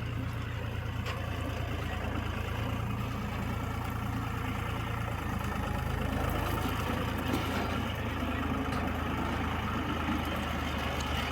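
Heavy diesel engine of earth-moving machinery running steadily, its low note shifting about five seconds in, with more clatter after that.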